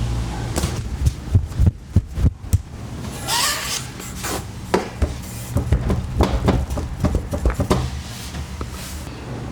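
Window blinds knocking irregularly against the window frame as the wind moves them, a dozen or so sharp knocks over a low steady hum.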